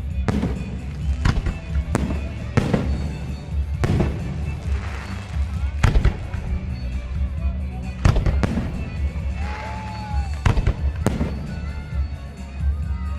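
Fireworks display: aerial shells bursting in a series of sharp bangs, about a dozen, with crackling fizz after some of them, over a steady low rumble.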